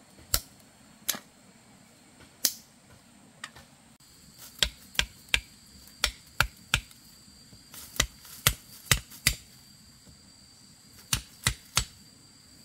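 Sharp knocks of a machete striking bamboo. First a few single chops spaced about a second apart, then quicker runs of three to five knocks.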